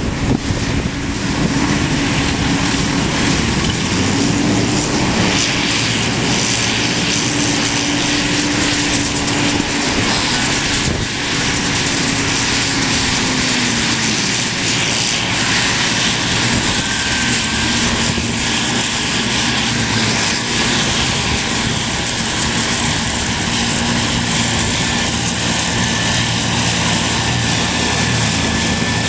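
Tractor engine running steadily. Its drone drops a little in pitch about halfway through, and a faint high whine comes in soon after.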